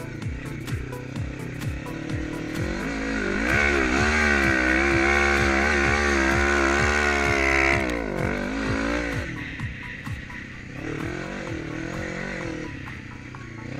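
Yamaha Raptor 350 quad with a swapped-in Honda CB500 engine, revving hard under load for several seconds in the middle, then easing off. Background music with a steady kick-drum beat plays underneath.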